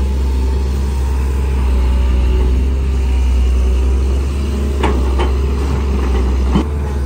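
Sunward SWE210 excavator's diesel engine running steadily under load, with its hydraulic pump howling as the loaded bucket swings over and dumps soil into a dump truck. A few sharp knocks come in the second half as the soil drops into the truck bed.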